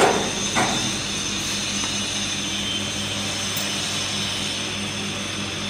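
Steady machine hum from a hexagonal wire netting machine, with two short clicks, one at the start and one about half a second in.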